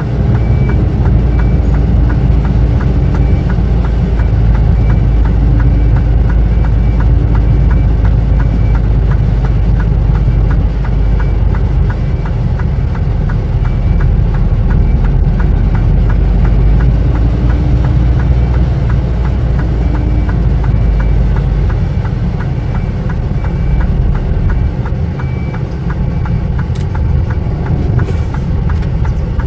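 Lorry's diesel engine running as the truck rolls slowly along, heard from inside the cab as a steady deep rumble that eases off somewhat about three quarters of the way through.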